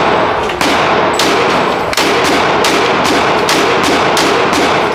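Rapid handgun shots at a shooting range, about two a second, loud, with a dense echo filling the gaps between them.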